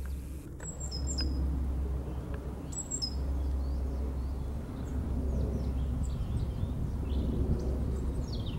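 Small songbirds chirping in trees: scattered short, high calls and quick falling chirps, over a steady low rumble.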